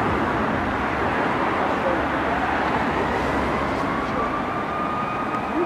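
Steady city street traffic noise, with a faint, slowly gliding wail of a distant fire engine siren.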